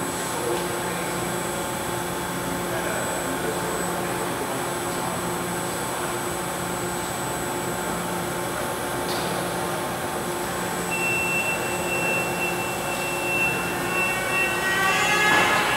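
Hyundai Wia CNC milling machine running an air-cutting program, with the spindle and axis drives turning but no metal being cut: a steady machine hum with motor whine. A higher steady tone joins about two-thirds of the way in, and a rising whine climbs near the end.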